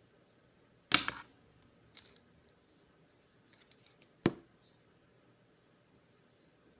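Handling noises from a mechanical keyboard and its packaging: a sharp knock about a second in with a short rustle, a few light clicks, then another sharp click a little past four seconds.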